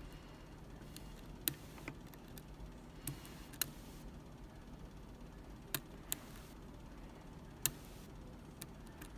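A handful of sharp, irregularly spaced clicks and ticks from a lock pick and tension wrench working the pins of a Medeco lock.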